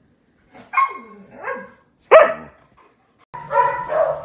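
Siberian husky vocalizing in short calls, two falling yips followed about two seconds in by a loud, sharp bark.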